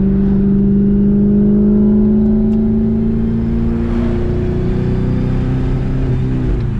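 Twin-turbo Saleen Mustang's V8 engine pulling under load, its pitch climbing slowly for about four seconds before dropping to a lower, steady drone, heard from inside the car.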